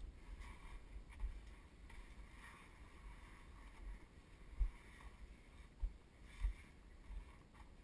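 Quiet rubbing and scraping of clothing and gear against sandstone canyon walls while squeezing through a tight slot, with three dull bumps against the camera in the second half.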